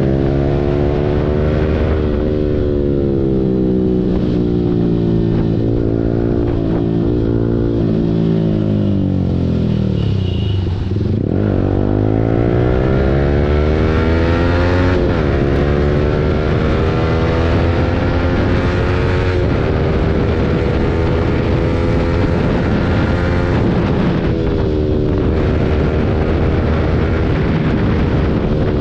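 Yamaha R15 V4's 155 cc single-cylinder engine running through an Akrapovic full-system exhaust under way, its revs rising and falling with the throttle. The revs sink low about ten seconds in as the bike slows, then climb back up and hold fairly steady, with another brief dip near the end.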